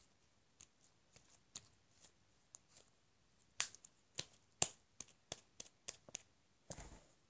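Sticky slime being squeezed and pulled in the hands, giving scattered sharp little clicks and pops, sparse at first and coming thicker from about halfway, with a brief rustle near the end. The slime is over-sticky, which she puts down to too much gel.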